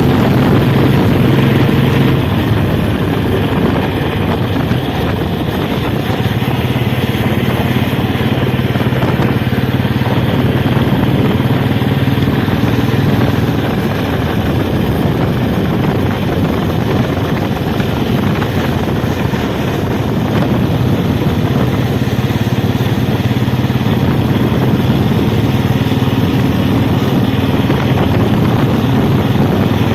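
A 2008 Royal Enfield Bullet's single-cylinder engine runs steadily and loudly, with a slight drop in level twice along the way.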